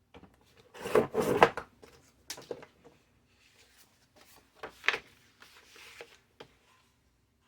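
Paper and card being handled on a craft table: irregular rustling and rubbing, with a few short knocks, the loudest cluster about a second in.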